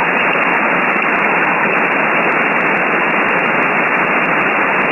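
Steady hiss of a shortwave receiver (RTL-SDR) in upper-sideband mode on the 20-metre ham band, filtered to the narrow voice range: band noise with no station transmitting.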